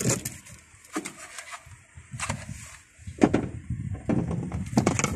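Handling noise: a few separate knocks and clunks, about five over the span, as the small patch antenna on its plastic-and-foam tripod is picked up and moved about on the car dashboard.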